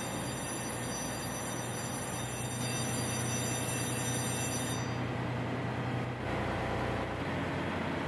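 Steady drone of running ship's machinery with a constant low hum. The high hiss drops away abruptly about five seconds in.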